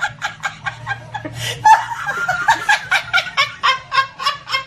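A person laughing in quick repeated bursts, about four or five a second, throughout.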